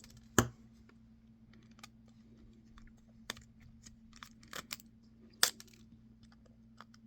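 Small plastic and metal clicks and taps as screws are taken out of a cell phone with a precision Torx screwdriver, with two louder clacks, one about half a second in and one about five and a half seconds in. A low steady hum runs underneath.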